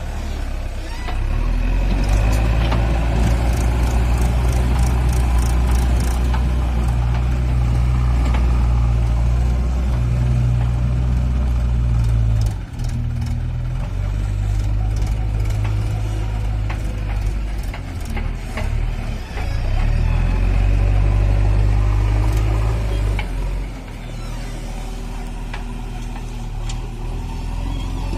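JCB 3DX backhoe loader's diesel engine working, its note rising under load and easing back several times as the machine drives and lifts its bucket, with scattered light clicks and rattles.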